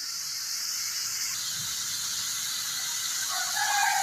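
Water boiling in a pan on a medium flame, a steady hiss. Faint squeaky pitched tones come in near the end.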